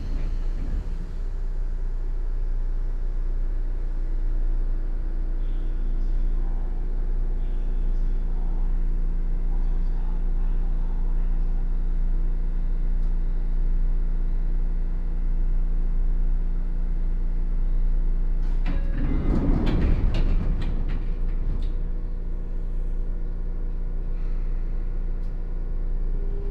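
Sotetsu 8000 series electric train running, heard from inside the car: a steady low rumble of wheels on rail with a constant hum. About two-thirds of the way through, a louder burst of clattering lasts two or three seconds.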